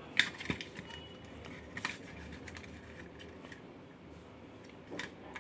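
Scattered light clicks and taps from a partly dismantled Bluetooth speaker and its small parts being handled, the loudest just after the start.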